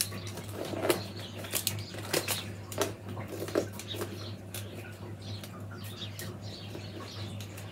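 Soaked buff willow rods being bent and woven into a wreath hoop: scattered creaks, sharp clicks and rustles as the rod ends are worked back into the weave. A steady low hum runs underneath.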